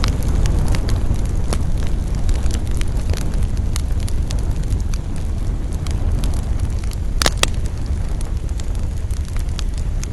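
Wood campfire burning: a steady low rumble of flames with frequent sharp crackles and pops of burning wood. The loudest is a double pop about seven seconds in.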